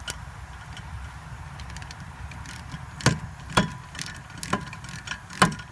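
A steady low hum, then four sharp metallic clicks or knocks a second or less apart from hand tools being worked at the brake caliper.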